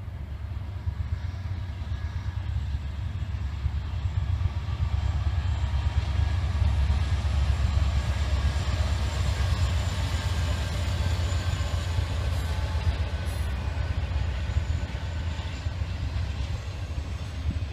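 Two Norfolk Southern diesel locomotives, an EMD SD70M-2 leading a GE Dash 9-40CW, passing at the head of an intermodal train. Their deep engine rumble builds over the first six seconds or so, then holds steady as the train rolls by.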